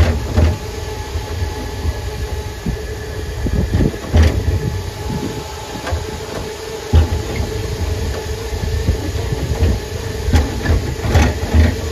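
Boardwalk tram car running: a steady whine from its drive, with irregular low bumps, knocks and rattles as it rolls along.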